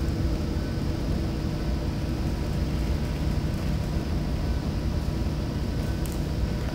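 Steady low rumble with a fainter hiss above it and a few faint steady hums, unchanging throughout.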